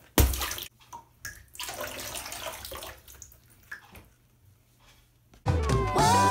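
A toy tugboat thrown into water: a sudden splash, then softer water sloshing and trickling as the boat takes in water. Cartoon music and a voice come in near the end.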